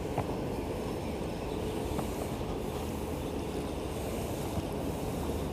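Steady low rumble of wind buffeting an action camera's microphone, with faint ticks twice, near the start and about two seconds in.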